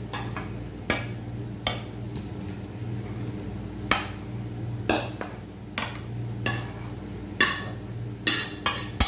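A metal cooking spoon scrapes and knocks against a frying pan as cooked butter shrimp is pushed out into a bowl. The clanks come irregularly, about once a second, quicker near the end, over a steady low hum.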